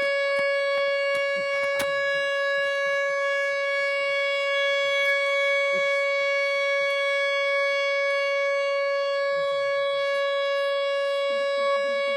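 Homemade paper siren sounding one steady, unwavering tone with strong overtones, holding its pitch rather than winding up or down. A couple of sharp clicks come near two seconds in.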